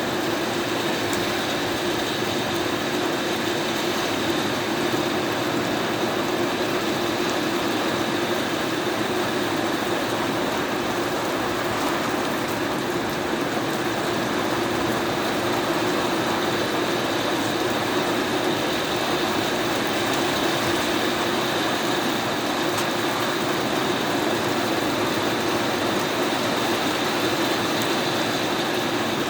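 Heavy downpour on a house: a dense, steady, unbroken rush of rain, heavy enough that the house hums with it.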